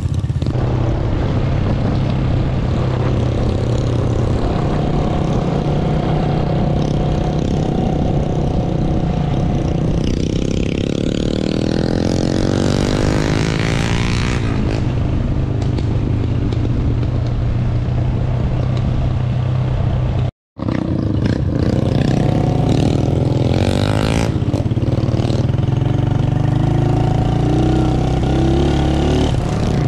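Motorcycle engine running while riding along a country road, with a steady hum. The revs rise about a third of the way in and again shortly after a brief moment where the sound cuts out.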